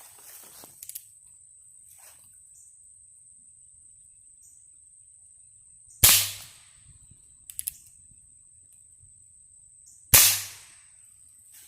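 Two shots from a .22 Short fired out of a Heritage Rough Rider revolver, about four seconds apart, each a sharp crack with a short ring-off. A few faint clicks come between the shots.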